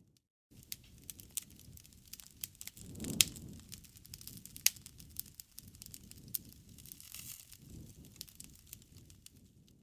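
Wood fire crackling: a steady scatter of sharp snaps and pops over a soft low rumble of flame. The loudest pops come about three seconds in and again just under five seconds in.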